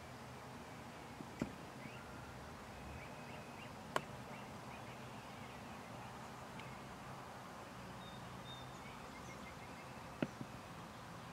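Quiet open-field ambience with faint, brief bird chirps, broken by three sharp clicks: about a second and a half in, at about four seconds, and near the end.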